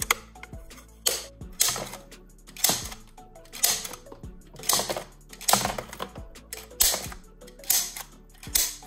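Plastic Toy Story 4 disc launcher firing its soft foam discs one after another, a sharp plastic clack about ten times, roughly once a second. Soft background music plays underneath.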